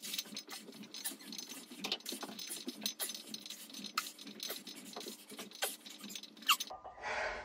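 Loose weight plates rattling and clinking on a barbell during squats and an overhead lift, a dense, irregular run of small metallic clicks and scrapes.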